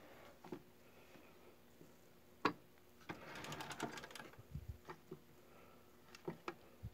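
Faint handling noises at model-train power-pack controls: a sharp click about two and a half seconds in, a second or so of light rattling and rustling, then scattered small clicks as a throttle knob is turned.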